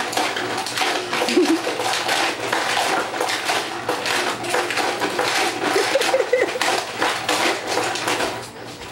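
Rapid, irregular clattering and banging of hard objects. A couple of short pitched vocal sounds come in about a second and a half in and again around six seconds in.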